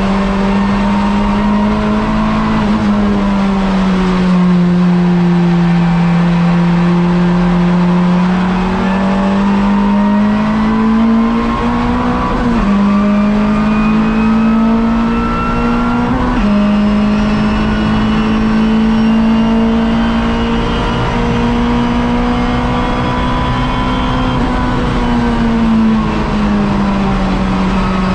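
Race-prepared hatchback engine heard from inside the cabin, running hard under load. The note climbs slowly and drops sharply twice about halfway through as the car changes up a gear. It sags briefly shortly after the start and again near the end as the driver lifts off.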